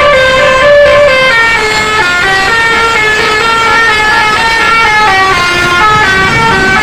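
Bus telolet basuri air horn playing a melody, several horn tones sounding together and stepping from note to note without a break.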